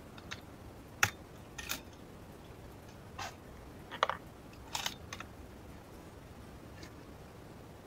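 A few short, sharp clicks and clacks, about six in the first five seconds, from handling a scoped rifle and its ammunition at a wooden shooting bench between shots.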